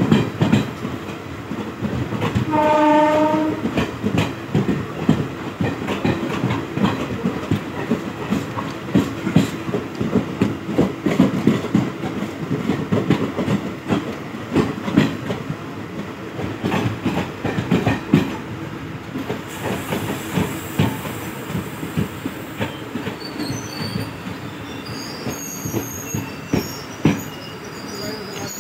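Wheels of a passing container freight train clattering over rail joints in a dense, irregular rhythm. A short train horn blast sounds about three seconds in, and high-pitched wheel squeal joins the clatter in the last third.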